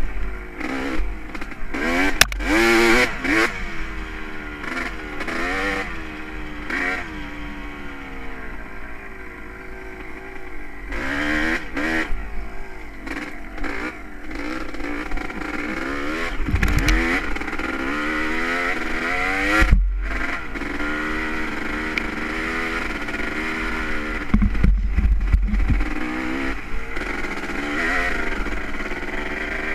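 Honda CR250R two-stroke motocross engine being ridden, revving up and falling back over and over as the rider works the throttle and gears. A few low thumps come through, notably about two-thirds of the way in and near the end.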